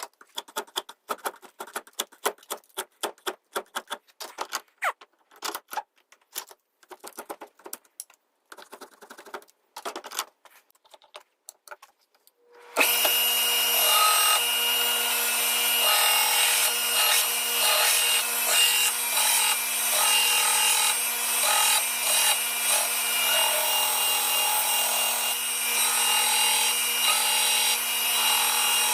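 Quick, irregular light scraping and clicking, then about halfway through a power sander switches on abruptly and runs steadily with a constant hum and a grinding rasp as it works the knife's steel.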